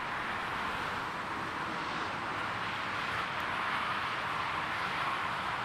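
Airbus A330-200 jet airliner on final approach, its engines heard as a steady, even roar that grows slightly louder as it nears.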